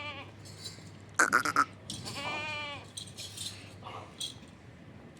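Goats bleating: a short choppy, stuttering call about a second in, the loudest, then a longer wavering bleat just after two seconds.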